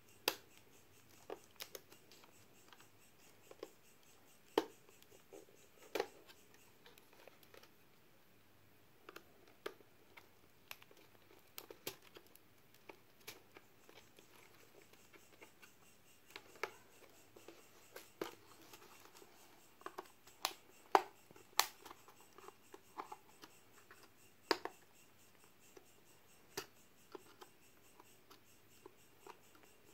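Irregular light plastic clicks and taps as a small flat-blade screwdriver pries at the latches of an HP 1000 laptop's stiff keyboard and fingers press on the keys. The sharpest clicks bunch together about twenty seconds in.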